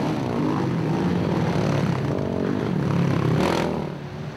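Racing quad bike (ATV) engines revving and easing off, their pitch rising and falling as they run the course. A short hiss comes about three and a half seconds in.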